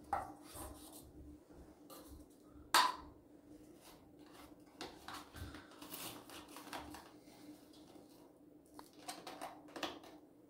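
Paperboard drink carton handled and its gable-top spout pried open by hand: scattered soft crackles and taps, with one sharp knock about three seconds in.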